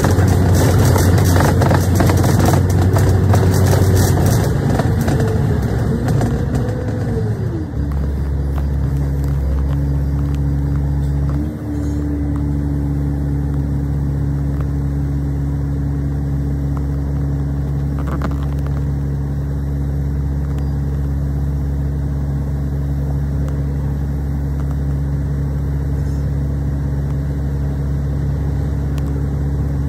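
Kowloon Motor Bus heard from on board: the engine and drivetrain run as the bus slows, with a falling whine about seven seconds in. The engine then idles steadily while the bus stands at a junction, with a brief thump a few seconds after it stops.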